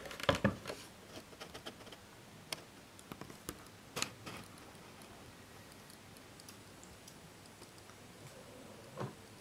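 Quiet room with a few small clicks and taps from handling, mostly in the first half, and a soft thump near the end.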